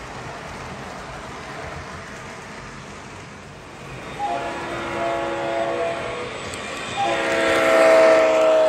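Three-rail O-scale model freight train rolling along the track, then a model diesel locomotive's onboard sound system blows a multi-note air horn: one blast about four seconds in and a second, louder one starting about three seconds later and still sounding at the end.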